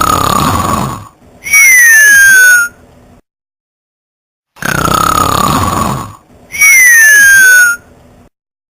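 Loud snoring in two identical cycles about five seconds apart: each is a rasping snore with a falling pitch, followed by a high whistle that slides down in pitch, then silence.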